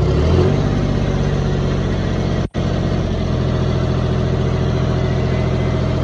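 John Deere 5050D tractor's three-cylinder diesel engine running hard, picking up revs in the first half second and then holding a steady pitch. The sound cuts out for an instant about two and a half seconds in.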